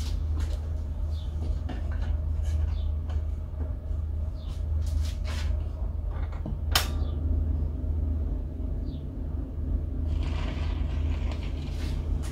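Ei Melos Luxe radiogram switched on, giving a steady low hum, with handling clicks and knocks as a record is set on its turntable and played. The sharpest click comes about seven seconds in.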